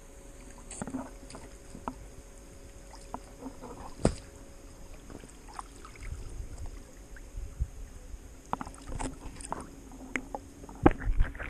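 Pool water lapping and sloshing against an action camera at the water surface, with scattered small clicks and a sharp knock about four seconds in. The knocks and splashes get louder near the end.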